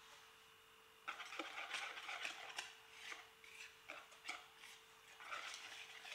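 Wire whisk beating a thin batter in a mixing bowl: quick, irregular swishing and clicking of the wires against the bowl. It starts about a second in, eases off past the middle and picks up again near the end.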